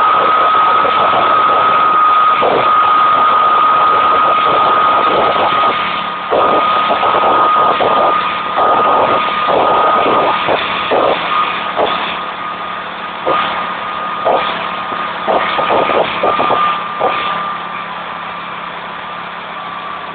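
Twin-turbocharged lawnmower engine running, with a steady high whine held throughout and many short throttle blips, mostly in the middle; it gets quieter toward the end.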